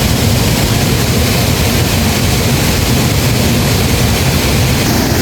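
Waterfall pouring: a loud, steady rush of falling water, heaviest in the low end, with no break.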